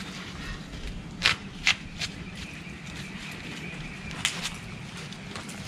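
A long knife blade cutting into and splitting a cleaned banana corm: three sharp cracks between one and two seconds in, and another just past four seconds.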